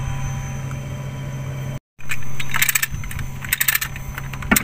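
A steady low machine hum, then, after a sudden cut, a lifting chain clinking in several short metallic rattles as it takes up a hanging worm wheel.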